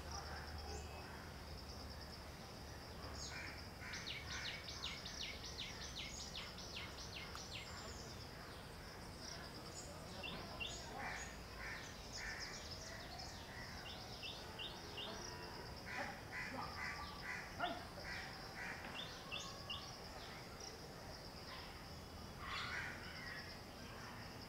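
Garden ambience: several birds calling and chirping, with a rapid run of repeated notes a few seconds in and scattered calls after, over a steady high insect drone.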